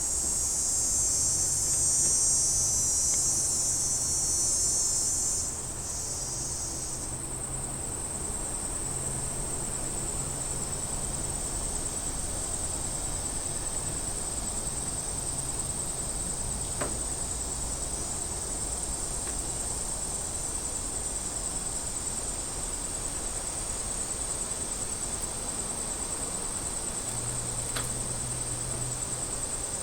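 Cicadas buzzing in a steady high-pitched drone. A louder, fuller buzz cuts out about five or six seconds in, leaving a thinner, even buzz.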